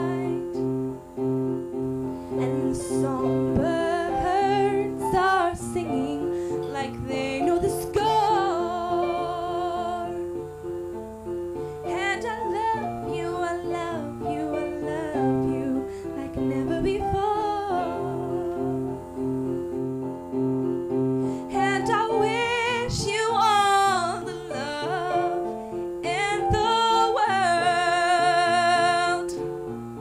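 A woman singing a slow song, accompanying herself on a keyboard with steady repeated chords; near the end she holds long notes with vibrato.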